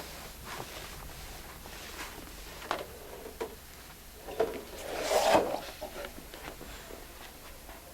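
Scattered light knocks and scrapes from hands working with metal and tools, with a louder scraping rustle about five seconds in.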